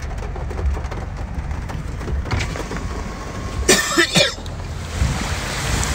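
Steady low rumble of a car heard from inside its cabin. A short vocal sound like a cough comes about four seconds in.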